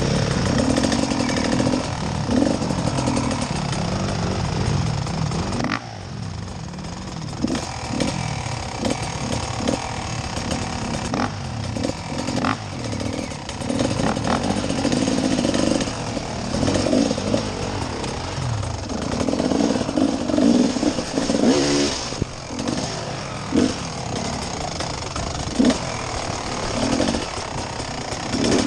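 Dirt bike engine revving up and down over and over as the bike is ridden slowly along a rough, muddy trail, heard close up from the rider's own bike. The level dips briefly about six seconds in.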